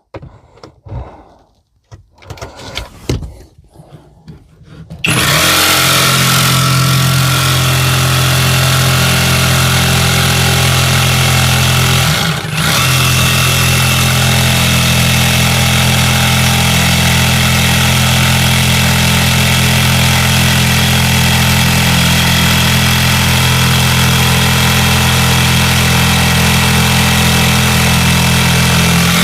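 Electric jigsaw with a 75 mm wood blade cutting through a worktop and its melamine layer, running steadily after starting about five seconds in, with a brief dip near the middle. The first seconds hold only a few small clicks and knocks.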